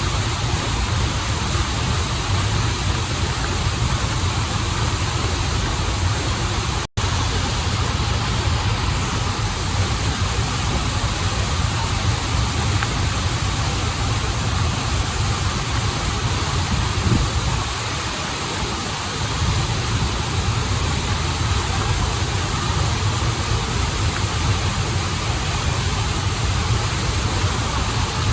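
Waterfall and stream water rushing in a steady, dense wash with a deep low rumble, broken by a split-second dropout about a quarter of the way in.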